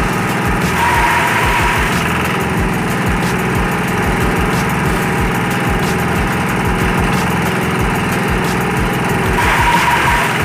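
Kubota 12.5 hp single-cylinder diesel engine running steadily, driving a forage chopper. Twice, about a second in and again near the end, there is a burst of cutting noise as corn stalks are fed through the chopper blades for silage.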